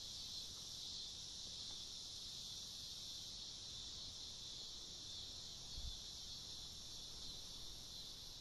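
Insects chirring steadily, a continuous high hum with no break.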